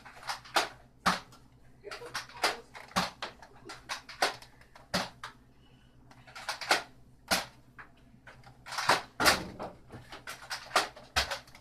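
A string of sharp clicks and knocks at irregular spacing, a few a second, with a short lull in the middle and a denser cluster near the end.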